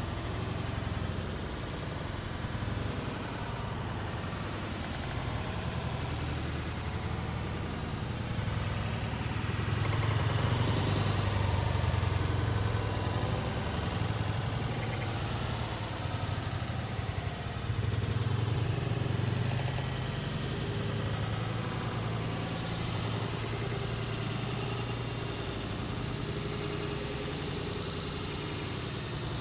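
Road traffic: motor vehicle engines running along a city street in a steady rumble. It swells as vehicles pass, about ten seconds in and again near eighteen seconds.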